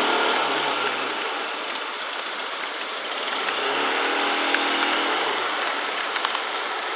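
Bajaj Pulsar RS200 motorcycle's single-cylinder engine running while riding, under a steady hiss of rain and wind. The engine note comes up again for a couple of seconds from a little past three seconds in.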